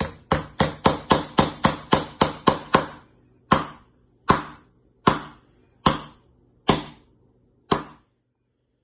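Lobster shell being struck hard to crack it: about eleven quick hits in a row, then six slower, spaced-out blows.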